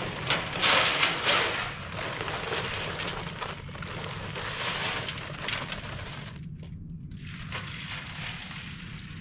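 Dry concrete mix poured from a bag into a wheelbarrow: a steady rushing hiss of falling powder, loudest in the first couple of seconds and then tapering. It stops briefly about six and a half seconds in, and then water is poured into the mix from a bucket.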